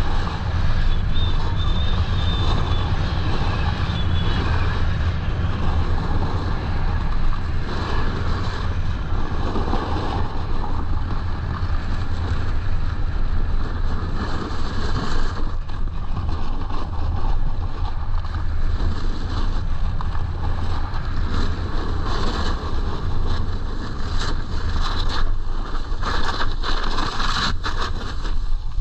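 Wind buffeting the microphone of a body-mounted action camera on a snowboarder riding at speed, with the rush and scrape of the snowboard's edges carving over groomed snow. The scraping gets harsher and more broken in the last few seconds.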